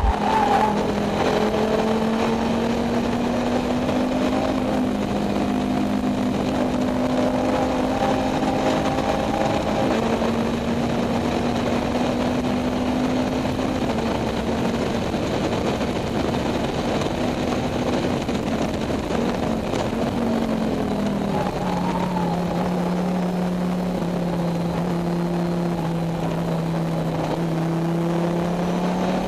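Volvo S60 Challenge race car's five-cylinder engine running hard at speed, heard inside the stripped, roll-caged cabin. The engine pitch shifts up and down with throttle and gear changes, drops clearly about two-thirds of the way through and climbs again near the end, over a steady rush of tyre and wind noise.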